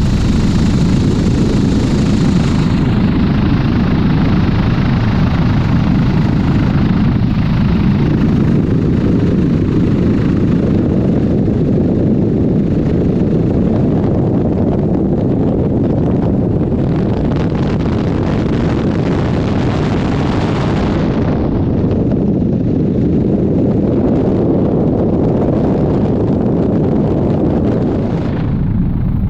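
Helicopter in flight: a steady heavy rumble of rotor and engine, with wind rushing over the microphone. The higher hiss of the wind eases a few seconds in and again about two-thirds of the way through.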